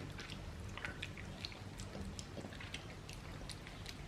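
Faint chewing of food, with a scatter of small wet clicks and ticks, over a low steady hum.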